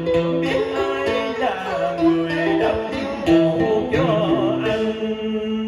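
Cải lương instrumental music: plucked string instruments playing a slow melody of long held notes with wavering bends.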